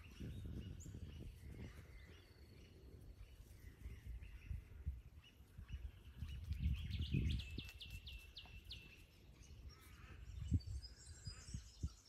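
Outdoor bush ambience with birds calling: past the middle one bird gives a quick run of about eight sharp repeated notes, and high chirps come near the end, over a low, uneven rumble.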